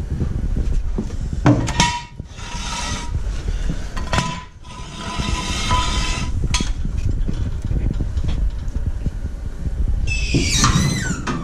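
Floor jack and jack stands being worked to lower the car back onto its wheels: clanks, scrapes and knocks of metal, ending with a falling high squeak near the end.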